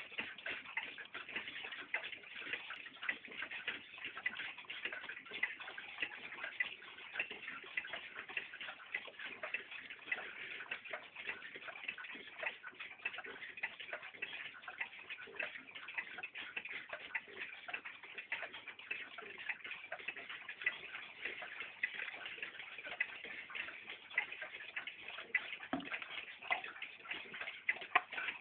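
A 1960s rope-hung wall clock ticking: a steady run of light ticks.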